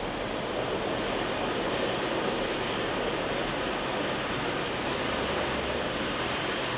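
Fleischmann H0 model steam locomotive hauling a train of freight wagons along the layout's track: a steady rushing rumble of model wheels rolling on the rails.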